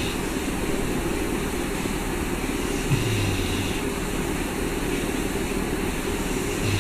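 Steady whooshing background noise, like a fan or air handler, with a short low hum that comes back about every three and a half seconds: around 3 seconds in and again near the end.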